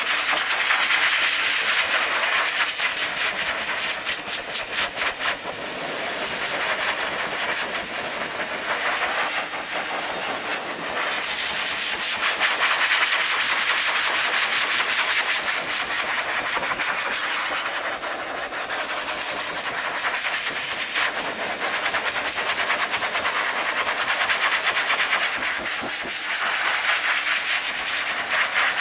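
Pet blaster dryer blowing a strong jet of air through a large dog's wet coat: a loud, steady rushing hiss with a fast flutter at times, swelling and easing every several seconds.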